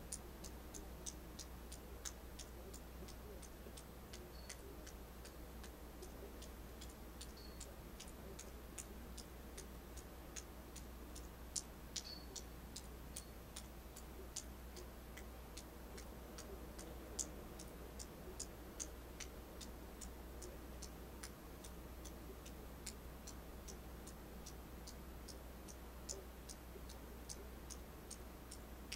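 Faint, fairly regular high ticking, about two or three ticks a second, over a steady low hum.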